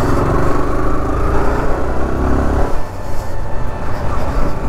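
Sport motorcycle engine accelerating with a slowly rising pitch, then easing off with a short dip about two and a half seconds in, over steady road and wind noise.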